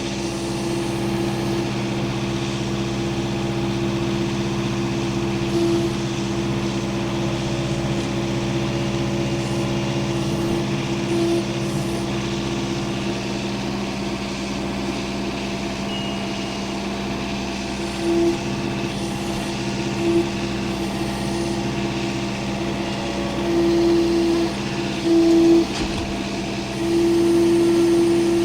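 Engine of a log-handling machine running steadily while logs are shifted around the log stack, with a higher tone swelling louder several times in the second half as the machine works under load.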